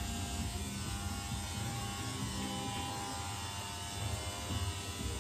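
Steady buzzing hum of a running electric motor, with a thin steady whine over it.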